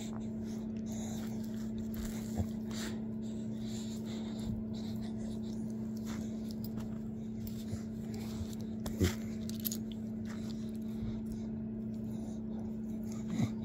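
A steady low electrical hum, with a few faint short taps and clicks scattered through it, the strongest about nine seconds in.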